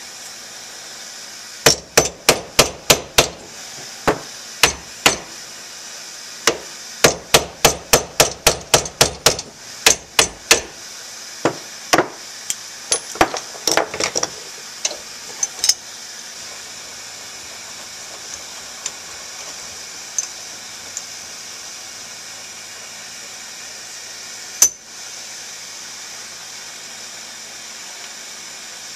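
Hammer blows on a punch knocking the rusted needle-roller bearing out of a Kawasaki KX250 Uni-Trak linkage rocker clamped in a bench vise: quick runs of sharp metal strikes for the first ten seconds or so, then scattered lighter taps, and one last loud strike near the end. A steady hiss sits underneath.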